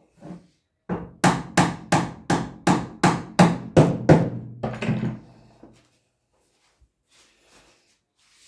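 Hammer blows struck in an even run, about three a second, roughly a dozen strikes, each ringing briefly, then dying away.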